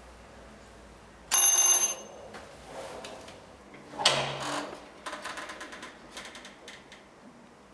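Electric doorbell ringing once, a short bright ring about a second in. A sudden sharp sound follows about four seconds in, then a run of small clicks and knocks.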